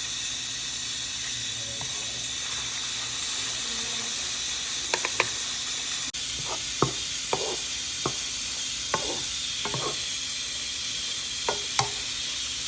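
Food sizzling steadily in hot oil in a frying pan, with short clicks and taps of a utensil against the pan scattered through the second half.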